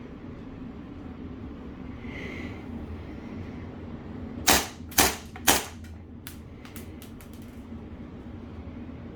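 Tokyo Marui Series 70 gas blowback airsoft pistol, running on green gas, firing three quick shots about half a second apart, followed by a few fainter clicks.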